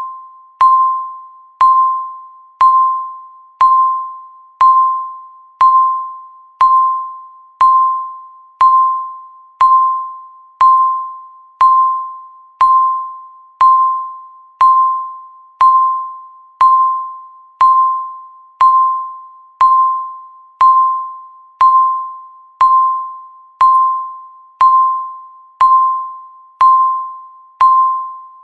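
Countdown timer beeping once a second, each beep marking one second counting down. Every beep is a single clear tone that starts sharply and fades quickly.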